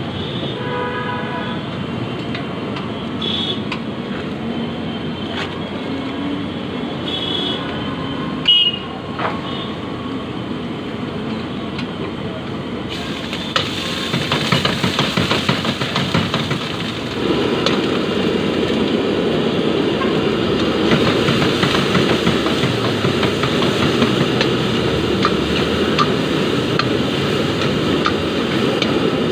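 Busy street traffic with a vehicle horn honking near the start. About halfway through, a louder steady rushing hiss sets in and grows stronger: food cooking in a pan over a high gas flame.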